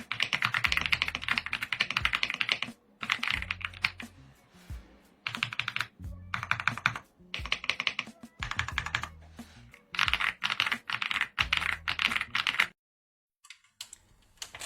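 Typing sound test on an AULA F75 gasket-mounted mechanical keyboard with Leobog Graywood V3 linear switches and double-shot PBT keycaps. The keys are struck rapidly in bursts of a second or two with short pauses between them, and the typing stops shortly before the end.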